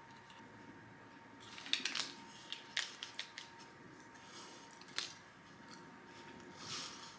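Faint crinkling of a paper stick packet of powder, then small mouth clicks and smacks as the dry powder is taken straight from it. The crinkles and clicks cluster about a second and a half in, with one more sharp click later and a soft rustle near the end.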